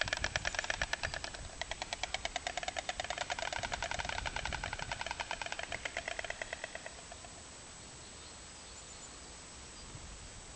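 White stork clattering its bill: a rapid, even wooden rattle of many clacks a second that slows and fades out about seven seconds in.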